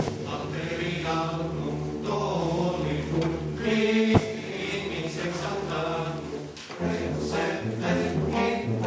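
Choir singing sustained chords in slow phrases. A sharp click cuts in about four seconds in.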